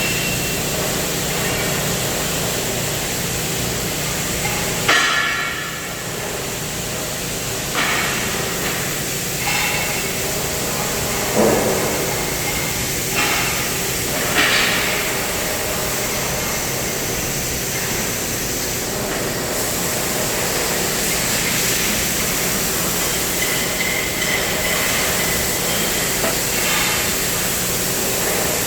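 Steady hiss of a CNC cutting torch working steel, with a few short metallic clanks in the first half.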